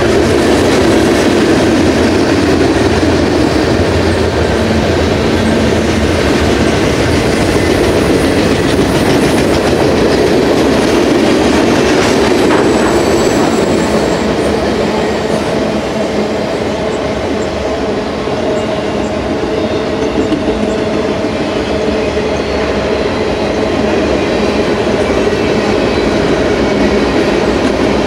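Freight cars of a Union Pacific manifest train rolling past: a steady, loud rumble and clatter of steel wheels on the rails, with faint high-pitched wheel squeal partway through.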